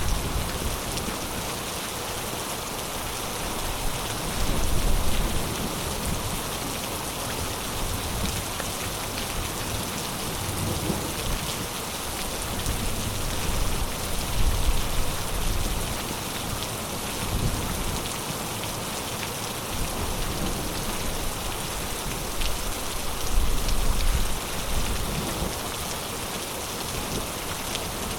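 Heavy rain falling steadily, a dense even hiss of drops on surfaces. Deep low rumbles swell up a few times, about every ten seconds.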